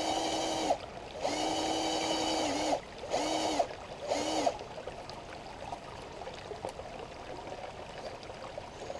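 RC crawler truck's electric motor and gears whining at a steady pitch in throttle bursts: one long run that breaks off, returns, then comes back twice briefly before stopping, the truck held in place against the rocks. After that the shallow stream trickles on its own.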